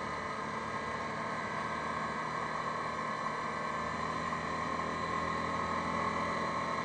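Yamaha Grizzly 550 ATV's single-cylinder engine running steadily while riding, growing a little louder near the end.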